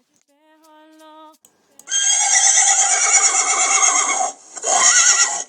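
Horse whinnying: a long neigh with a quavering, wavering pitch, then a shorter one that rises and falls near the end. A faint steady tone sounds briefly before the first whinny.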